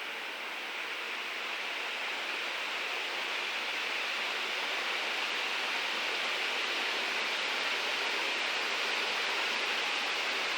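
Venti-Delta Eco ceiling fan running, its blades making a steady rush of air that grows slowly louder.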